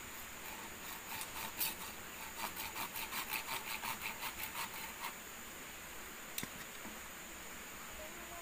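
Machete sawing back and forth across a green bamboo pole in quick, even strokes, which stop about five seconds in. A single light knock follows.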